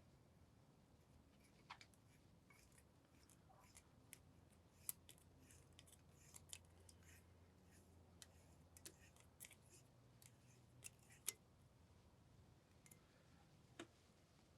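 Faint, irregular small clicks and ticks of a hand tap being turned to cut new threads in a drilled-out bolt hole in a Yamaha 225 two-stroke outboard's aluminium block.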